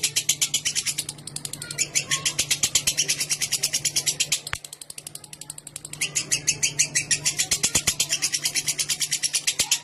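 Lovebird giving its long 'ngekek' chatter: a rapid, sustained run of high, sharp repeated notes, about eight to ten a second, briefly breaking about a second in and going softer for a stretch in the middle before resuming at full strength.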